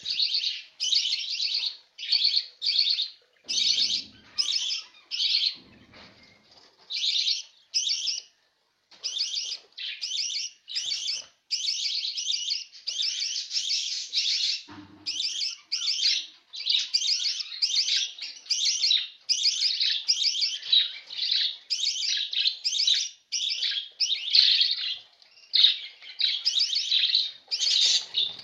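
A bird chirping in rapid trilled bursts, one after another with hardly a pause, with a few soft low thumps along the way.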